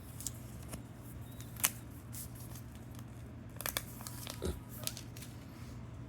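Packaging being handled in a smartphone unboxing: crinkling and tearing with a few sharp clicks, the loudest about a second and a half in and a quick cluster a little past halfway.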